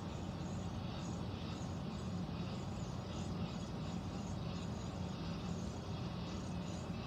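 Central air conditioning running with a steady low hum and rushing hiss, with a faint rhythmic pulsing in the hiss; the owner wonders whether the strange noise means a leak.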